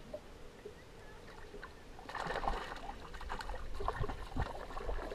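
Water splashing as a hooked fish thrashes at the surface beside the aluminium boat, starting about two seconds in, with a quick run of irregular splashes and crackles.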